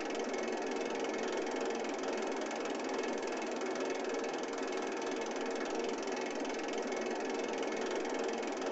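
A machine running steadily, an even rattly hiss with a few faint humming tones.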